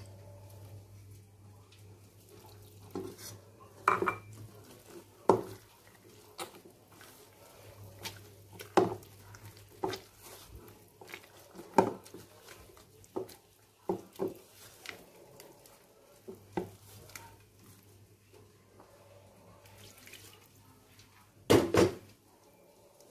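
Wire whisk stirring thick banana cake batter in a stainless steel mixing bowl, knocking and clinking against the metal at irregular intervals about once a second, with a louder double knock near the end.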